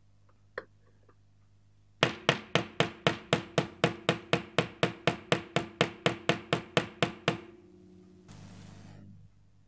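Small metal hammer tapping a round metal cap into the end of a white plastic sharpener knob: about twenty quick, even taps, roughly four a second, each with a short ringing tail, stopping after about five seconds. A single click comes shortly before the taps, and a brief soft hiss near the end.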